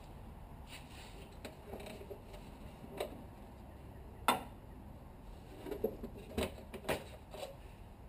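Scattered light clicks and knocks of gloved hands handling parts in a car's engine bay, working at the plastic engine cover, with one louder knock about four seconds in.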